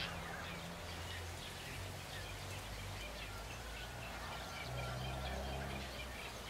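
Outdoor pond ambience: many small birds chirping in quick, scattered calls over a low steady hum.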